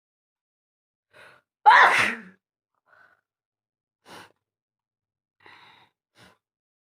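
A woman sneezes once, loud and sudden, about two seconds in, just after a short catching breath; a few faint short breaths follow.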